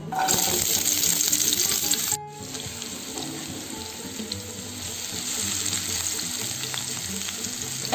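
Chopped onion sizzling in hot oil in a frying pan: a loud hiss as the onion hits the oil, settling after about two seconds into a steadier, quieter frying sizzle.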